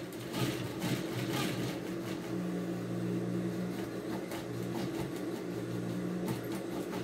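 Flat-bed straight-stitch sewing machine running, its motor humming steadily with faint stitching ticks as it sews a seam along the fabric's edge.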